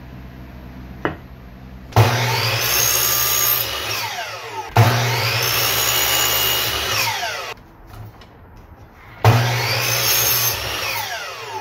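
JIFA sliding miter saw started three times, each run a few seconds long, crosscutting a wooden strip; after each run the blade winds down with a falling whine.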